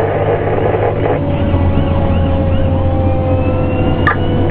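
Fire engine siren yelping in quick rise-and-fall cycles, about three a second, heard inside the cab of a Pierce Enforcer engine over the steady drone of its engine, with a long tone sliding slowly down in pitch. A sharp click comes near the end.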